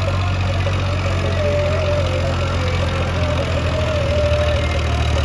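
Diesel tractor engine running steadily at a low pitch, with a thin wavering higher whine over it.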